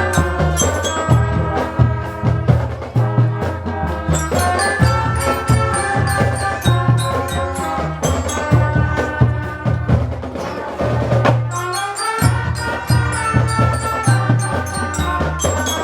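Music from a percussion-heavy band: a steady pounding drum beat under a ringing, bell-like melody. The low drum drops out briefly about twelve seconds in, then comes back.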